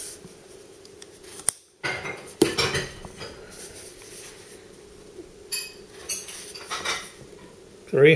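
Steak knives clinking inside a wooden knife box as it is closed, latched, set down on a counter and turned over: a string of separate metallic clinks, small knocks and latch clicks, busiest about two to three seconds in.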